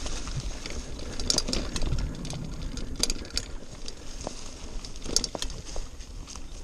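Mountain bike rolling along a leaf-covered dirt singletrack: tyres running over dry leaves and dirt, with irregular sharp clicks and rattles from the bike over a low rumble.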